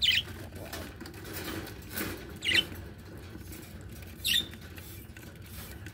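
Pet budgerigars giving three short, high chirps a second or two apart while being misted from a hand spray bottle, with a brief spray squirt about two seconds in.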